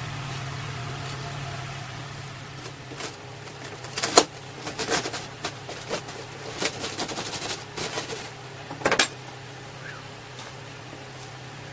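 A knife scraping and chopping at a crumbly lump of dried cigarette tar on a hard surface: a run of scratchy strokes and clicks, with two sharp knocks about four and nine seconds in, over a steady low hum.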